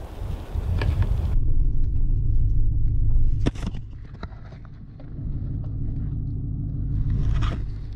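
Low, steady rumble of a pickup truck moving slowly, heard from inside the cab, with a few short knocks and rattles.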